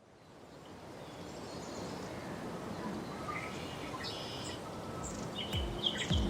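Outdoor ambience fading in: a steady background hiss with scattered short bird chirps. Near the end, music starts with deep bass drum hits that drop in pitch.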